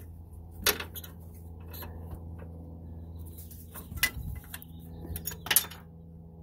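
Metal clinks and clatter of hand work on a manual transmission as the clutch slave cylinder is worked free and lifted out. There are three sharp clinks, about a second in, around four seconds and near the end, over a steady low hum.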